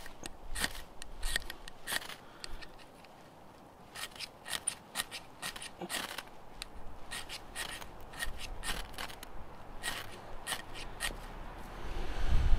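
Dry wood shavings crackling and rustling as they are fluffed and pressed together by hand, a run of irregular crisp clicks. A louder low rumble starts near the end.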